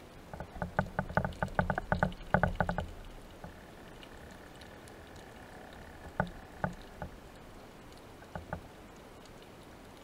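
Clicks and knocks heard underwater: a quick irregular run of them for about two seconds, then a few scattered single clicks, over a faint steady hiss.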